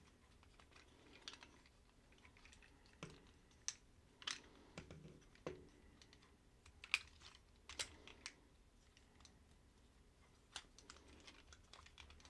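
Faint, irregular clicks and taps of hard plastic parts on a Transformers Siege Ratchet action figure being folded and snapped into place by hand.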